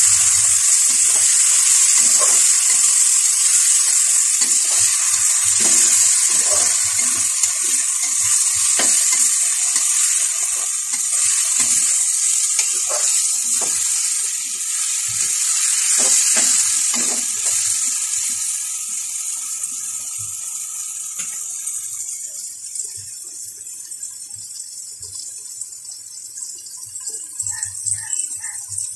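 Chopped onions, tomatoes and spices sizzling in hot oil in a kadai, with a metal spatula scraping and stirring them in repeated strokes. The sizzle grows quieter over the last several seconds.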